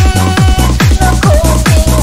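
Electronic dance music with a steady, fast beat and a held synth melody.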